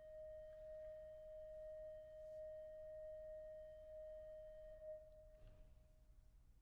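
Schantz pipe organ holding a single soft note, released about five seconds in and dying away in the room's reverberation, with a faint thump as it fades.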